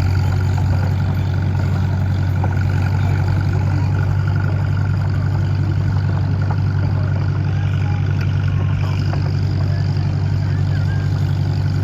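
An engine running steadily at a constant speed, a low, unchanging hum.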